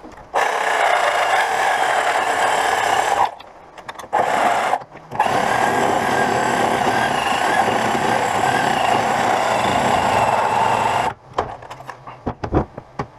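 A power tool running in three goes: about three seconds, a short burst of under a second, then about six seconds, each time starting and stopping abruptly. A few light knocks follow near the end.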